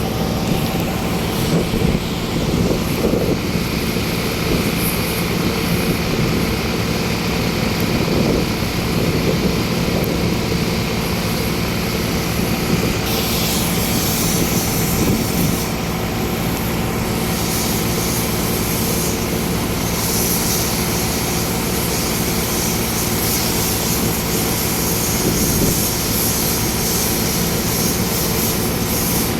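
An engine running steadily: a constant drone with several fixed hum tones and no change in speed. About halfway through, a hiss joins in the high range and carries on.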